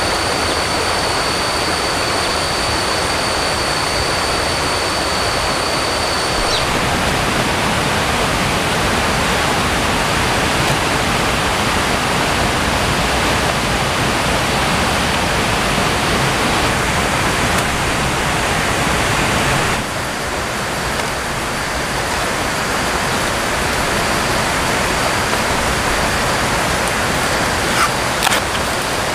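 Steady, even rushing noise throughout, with a high steady whine over it for about the first six seconds. A few sharp crackles come near the end.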